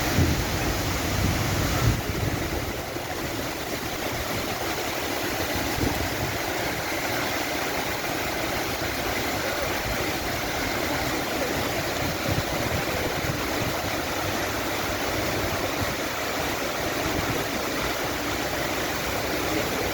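Steady, even rush of heavy rain and floodwater.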